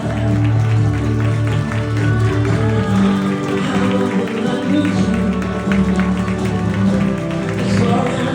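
Instrumental music playing steadily, with held notes.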